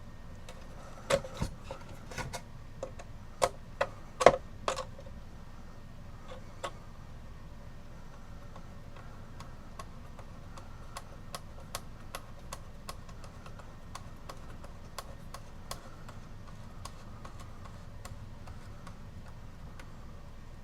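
Sharp metal clicks and knocks of small clock parts and a screwdriver being handled in a wooden cuckoo-clock case, loudest in the first few seconds. After that comes a faint, regular ticking, about two ticks a second.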